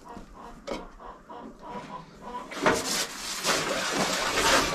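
Chickens clucking faintly, then about halfway through a garden hose starts gushing water into a metal tub with a loud, steady splashing rush.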